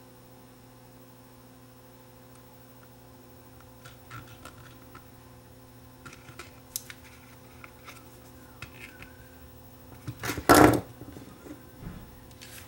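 Small screwdriver turning the tiny screws into the metal back of a Sony Walkman WM10 cassette player: faint scattered clicks and scrapes. A much louder clatter about ten seconds in as the player and tool are handled on the workbench.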